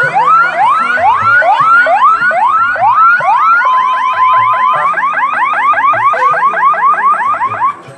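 Electronic siren sounding repeated rising whoops, about two a second, then quicker at about five a second from about five seconds in. A steady beep sounds for about a second near the middle, and the siren cuts off just before the end.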